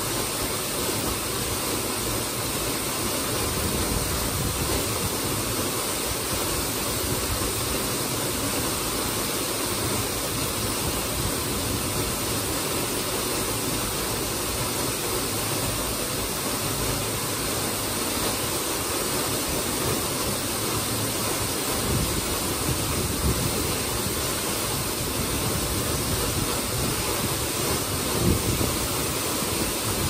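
Waterfall pouring into its plunge pool: a steady rushing of falling water.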